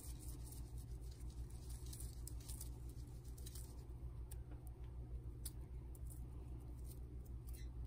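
A chayote's cut end is rubbed round and round against its severed tip, making faint rubbing and scraping sounds that are thickest in the first few seconds. The rubbing draws out the fruit's sticky white sap. A steady low hum runs underneath.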